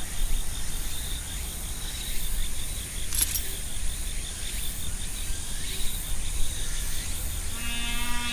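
Insects chirping in a quick, even high pulse over a steady low rumble, with one brief rustle about three seconds in. Background music starts near the end.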